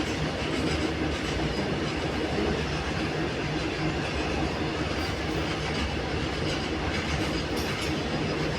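A train running over a railway bridge, heard from underneath the bridge: a loud, steady rumble that does not let up.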